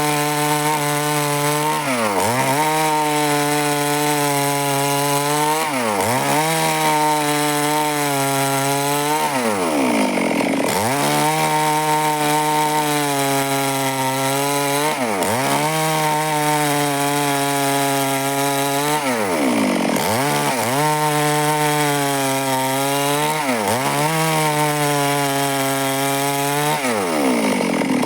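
Stihl two-stroke chainsaw running at high revs while cutting wood. Its engine speed dips and recovers every three to four seconds.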